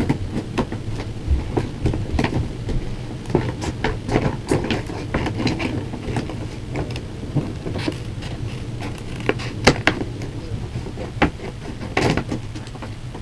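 Scissors cutting into a cardboard toy box and its packaging: irregular snips, clicks and rustles of cardboard and plastic, with a sharper knock near ten seconds and another around twelve.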